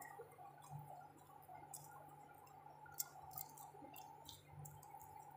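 Near silence: a faint steady hum with light scattered clicks and ticks, the sharpest about three seconds in.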